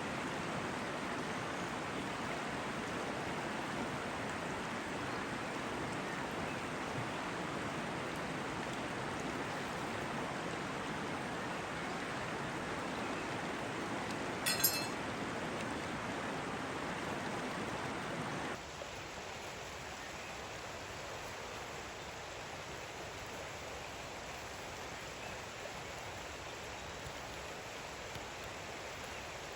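Steady rush of flowing water, with a single short clink about halfway; about two-thirds through it cuts to a quieter, thinner hiss.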